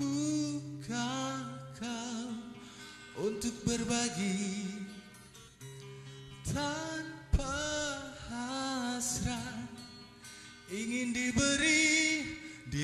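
A male singer singing into a microphone, with acoustic guitar accompaniment. The voice comes in phrases with short gaps, its long notes wavering and ornamented.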